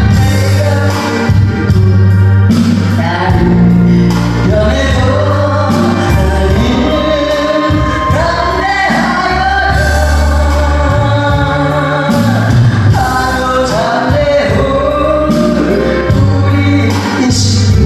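Korean gospel song: a singer holding long notes over a full accompaniment with a steady bass line.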